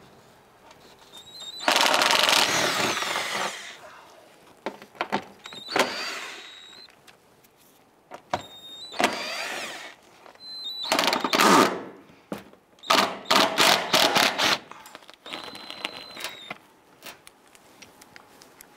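A 20-volt cordless power tool with an 8mm socket spins out wheel well liner screws in several bursts, its motor whine rising and falling. There is a long run about two seconds in, then shorter runs and a quick string of pulses later on.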